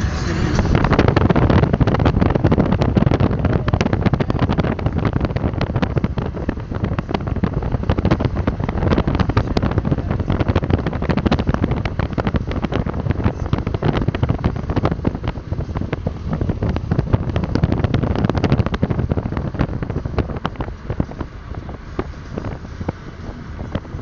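Wind rushing and buffeting against the microphone of a moving car, over low road and engine noise; it eases a little near the end.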